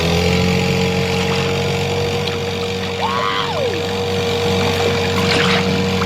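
Cartoon vehicle engine sound effect running steadily, with a short pitched sound that rises and falls about three seconds in.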